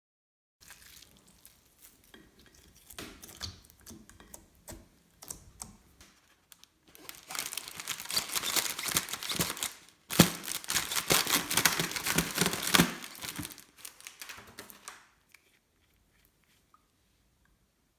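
Glossy slime being worked by hand, giving sticky crackling and tearing sounds, faint at first, then dense and loud in two stretches of several seconds each, fading out near the end.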